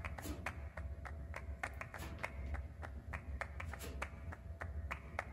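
Rhythmic hand clapping, about four sharp claps a second, over a low steady hum.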